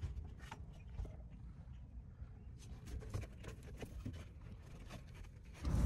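Faint scattered small clicks and rustling over a low steady rumble: hands handling the ABS wheel-sensor cable and its plastic cable holders.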